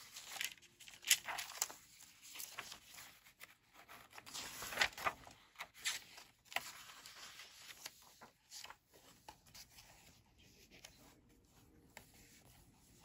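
Paper journal pages being turned and handled: quiet rustles and flicks of paper, busiest in the first seven seconds and sparser after.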